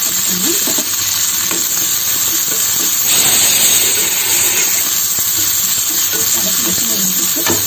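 Chopped small onions sizzling in hot sesame oil with mustard seeds as a tempering, stirred with a spoon in a kadai. The frying sizzle is loud and steady.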